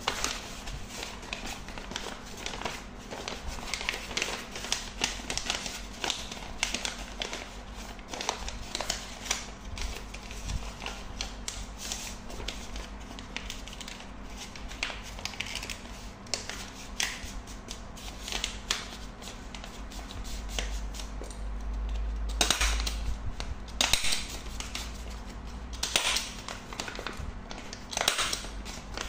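Brown kraft-paper envelope being handled and folded, rustling and crinkling in many short strokes, with a few louder, sharper crackles in the last several seconds.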